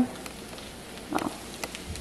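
Quiet room tone: a low steady hiss, with a faint brief sound about a second in and another near the end.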